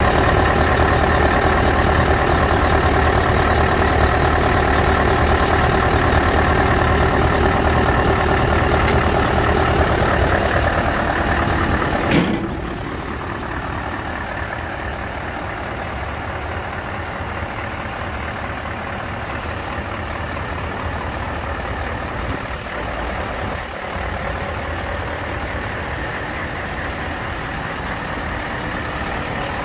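Mercedes-Benz SK 2644 tipper's V8 diesel engine idling steadily, loud at first at its open air-intake pipe, then, after a knock about twelve seconds in, quieter as heard from outside the truck.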